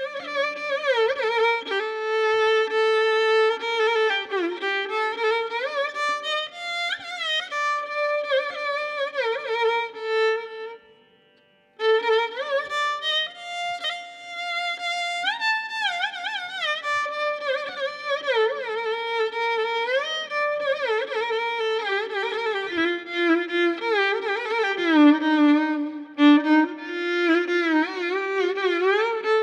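Violin playing a slow solo phrase in raga Shanmukhapriya, its notes sliding and bending with Carnatic ornaments. It pauses briefly about eleven seconds in, then carries on.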